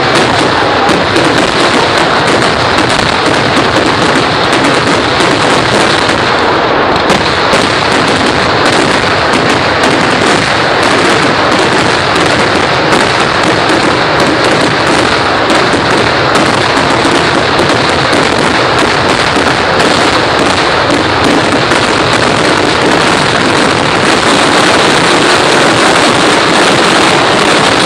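Kerala temple-festival fireworks (vedikkettu) going off in a dense barrage: explosions follow each other so fast that they run together into one loud, unbroken din with no gaps.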